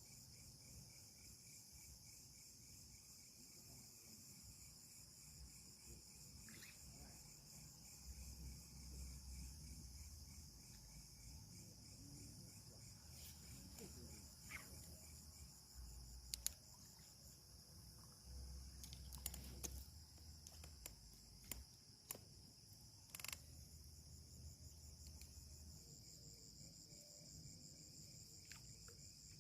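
Faint, steady chirring of insects such as crickets, with a few soft clicks and low rumbles now and then.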